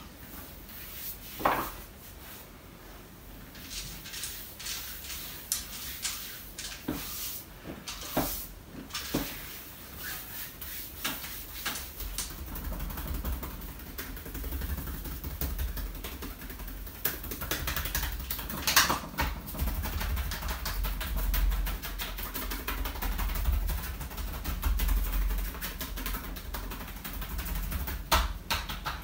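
Massage by hand on a bare back: the rustle of hands rubbing skin, with a few scattered sharp slaps. Near the end comes a fast, even run of strikes from joined-palm tapping (tapotement).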